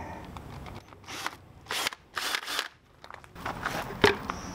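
Handling noises on gravel: three short scraping, crunching sounds, then a few light clicks and a sharp knock near the end.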